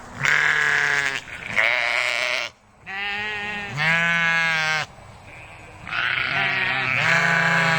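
Bleating livestock: about six loud, wavering bleats of up to a second each, with a short pause near the middle.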